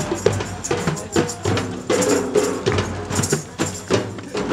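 Percussion-led music: fast, busy drumming with jingling hand percussion and short pitched melody notes over it.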